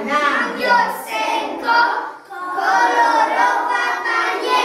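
A group of preschool children singing together, with a short break about two seconds in.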